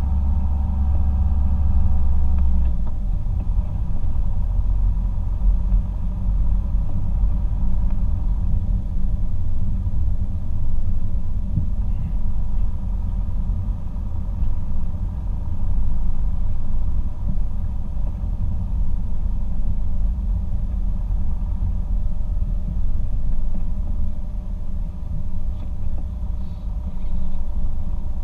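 Car driving, heard from inside the cabin: a steady low rumble of engine and tyres on the road. A steady low hum at the start changes about three seconds in.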